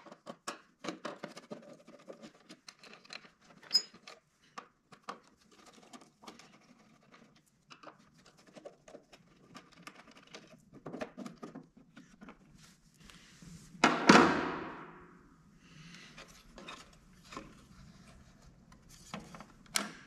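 Scattered small clicks, taps and knocks of hand tools and parts being handled while a MIG welder's front control panel is taken apart. About fourteen seconds in there is one much louder noise that starts suddenly and fades over a second or so.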